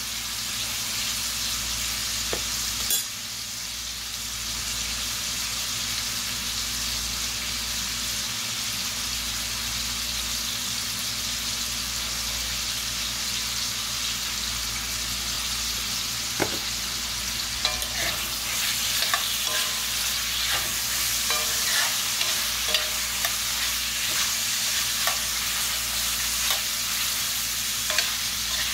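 Cubes of pork butt sizzling steadily as they brown in hog lard in a cast-iron pot on high heat. A metal spoon stirring the meat knocks and scrapes against the pot a couple of times, then often from about two-thirds of the way through.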